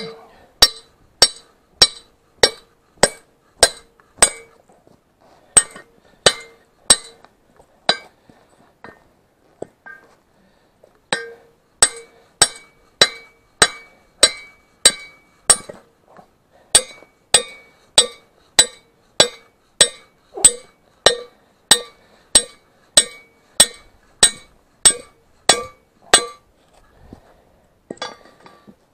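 Hammer blows on a steel part of a tractor's bale-loader fork: sharp, ringing metallic clinks, about one and a half to two a second. The blows stop for a couple of seconds in the middle and briefly again near the end. The part is being knocked on to crack off a damaged piece.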